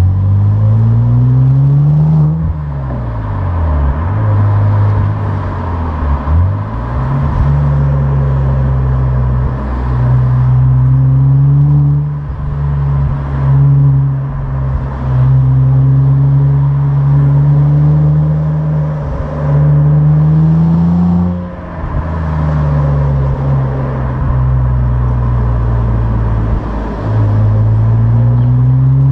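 Opel Insignia OPC's turbocharged 2.8-litre V6 with its stock exhaust, running under way. The engine pitch climbs near the start, falls and rises a few times over the next few seconds, then holds mostly steady with small rises. It climbs again about 20 s in, drops, and rises once more near the end.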